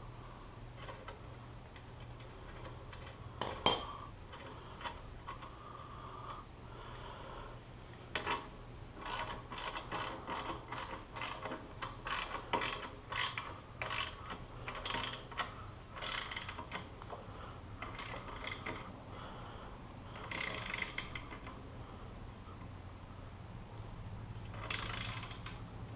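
Hand ratchet wrench clicking in bursts of quick strokes as bolts are turned. There is one sharp metal knock before the bursts, and a faint steady low hum underneath.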